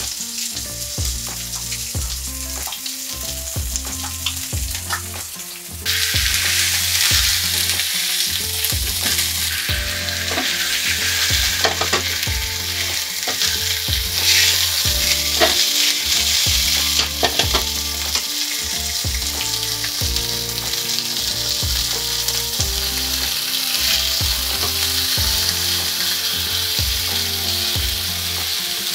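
Chicken thighs frying skin side down in a pan, sizzling steadily as the skin crisps. The sizzle gets louder about six seconds in, and a utensil clicks against the pan now and then.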